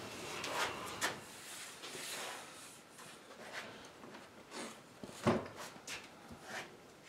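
Wooden drop-leaf table leaf being handled and turned over: scattered light knocks and rubbing of the wood, with the loudest knock about five seconds in.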